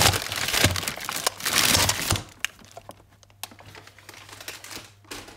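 Crumpled paper takeaway bag and plastic-wrapped toy capsules crinkling and rustling as the capsules are tipped out of the bag. The crinkling is dense for about two seconds, then thins to a few scattered small crinkles, with a brief rustle near the end.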